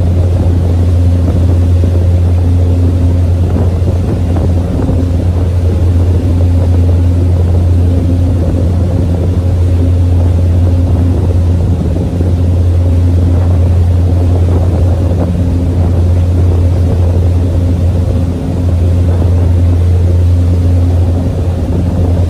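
Sightseeing tour boat's engine running steadily under way, a loud constant low drone heard on board.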